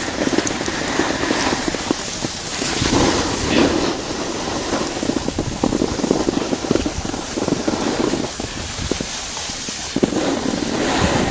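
Skis sliding and scraping over packed snow while skiing downhill, with wind buffeting the microphone; an uneven, crackling noise.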